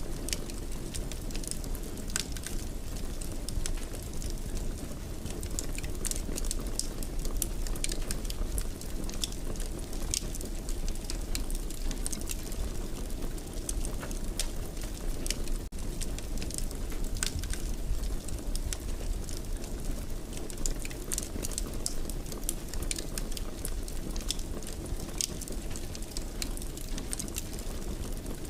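Fire crackling in a fireplace: a steady low rumble with frequent sharp pops and crackles scattered throughout.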